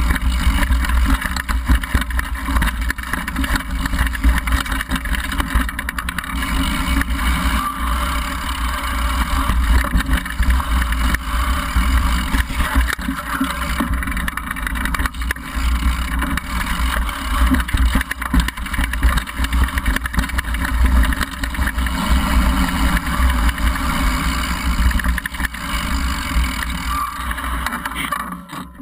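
Continuous rumbling and rattling of a downhill mountain bike riding fast over a rough dirt trail, picked up by a bike-mounted action camera: wind buffeting the microphone, knobby tyre noise on dirt and the bike shaking over bumps.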